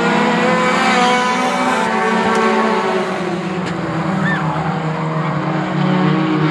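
A pack of four-cylinder compact race cars running at speed together, their engines overlapping at a steady, loud pitch.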